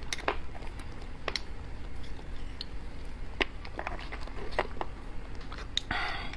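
Metal spoon clicking and scraping against the inside of beef marrow bones as the marrow is dug out, in scattered small taps, with a short louder scrape about six seconds in.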